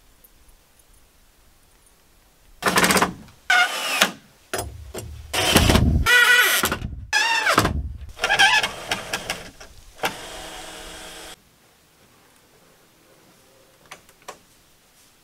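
Cordless drill driving self-tapping screws through a metal bracket into timber, in a series of short runs, the motor's pitch rising and falling as it speeds up and bogs down. The last run is steadier and lasts about a second. Two light taps come near the end.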